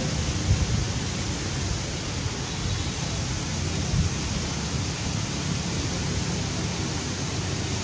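Steady outdoor background noise, an even hiss with a low flickering rumble, and two short soft knocks, about half a second in and at about four seconds.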